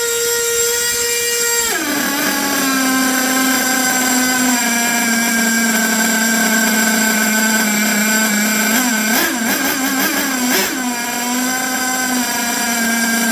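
HPI Savage X 4.6 two-stroke nitro engine fitted with an aluminum exhaust pipe, running with a high, buzzing whine. Its pitch drops sharply from a high rev to a lower steady speed early on, then holds, with a few brief throttle wavers near the middle-to-late part.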